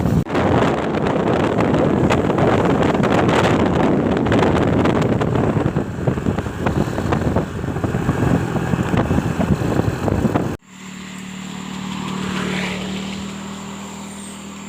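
Wind rushing over the microphone with vehicle noise while riding, cut off suddenly about ten seconds in. A quieter steady engine hum follows, with a whine that rises and falls.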